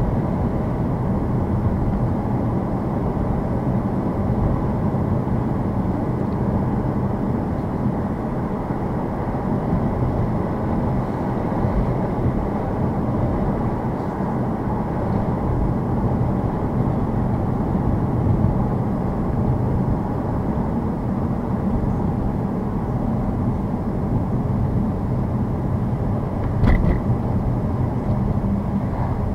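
Steady road and tyre noise of a car driving on a snow-covered road, heard from inside the cabin. Near the end there is a single brief knock.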